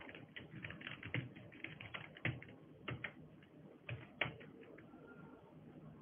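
Computer keyboard keys clicking as a terminal command is typed: a quick run of keystrokes, then a few separate, louder key presses.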